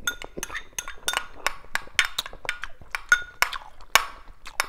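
Metal spoon clinking and tapping against a small ceramic soup bowl: an irregular run of sharp, ringing clinks, several a second.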